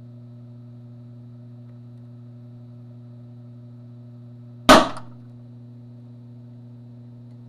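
A small electrolytic capacitor bursting with a single sharp bang about four and a half seconds in, as it fails under overvoltage. A steady hum runs beneath it.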